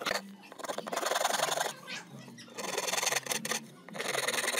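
Handsaw cutting across the edge of a pine board, rasping back and forth in three spells of strokes about a second long each.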